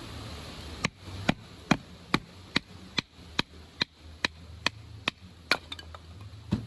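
Firewood being chopped or split for a campfire: about a dozen evenly spaced blows, a little over two a second, ending with a few lighter taps and a last blow.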